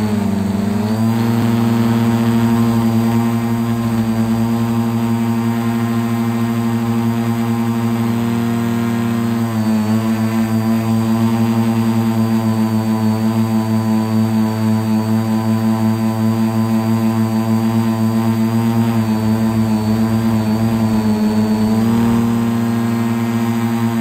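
Quadcopter's electric motors and propellers whining in flight, several steady tones together that shift in pitch a few times as the throttle changes, with a pulsing beat between the motors.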